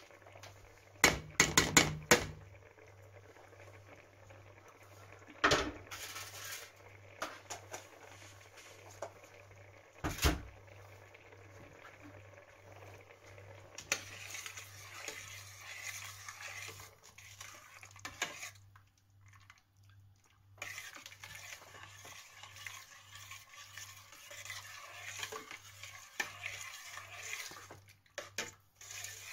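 A spoon clanks against a steel soup pot, with a quick run of loud knocks in the first couple of seconds and single knocks twice after. Then the spoon scrapes round the pot in two long spells as crème fraîche is stirred into the soup.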